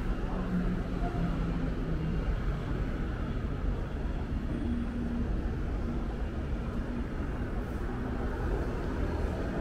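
Steady low rumble of city street ambience, with faint brief voices in the background.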